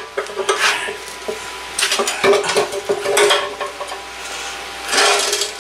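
Steel axle rod clanking and scraping against the steel wheel bracket of an air compressor tank: about four separate metallic clatters with a short ring.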